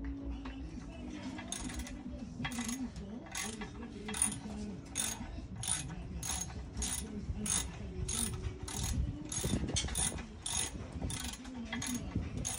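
Socket ratchet wrench clicking in short bursts, about two a second, as its handle is swung back and forth to back a bolt out of an outboard motor's lower unit. The clicking starts about a second and a half in.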